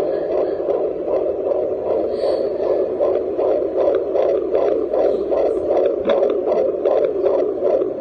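Fetal heartbeat of a 13-week fetus heard through a JPD-100E handheld fetal doppler's speaker: a fast, even, whooshing pulse at nearly three beats a second over a steady hiss.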